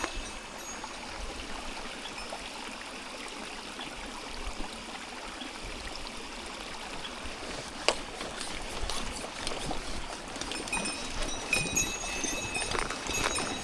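Mountain stream running steadily over rocks, with a single sharp click about eight seconds in and small clicks and rustles near the end.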